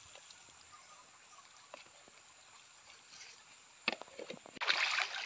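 Low ambience with faint small ticks, a few sharp knocks about four seconds in, then the rush of water flowing over the rocks of a shallow stream, starting abruptly near the end and louder than anything before it.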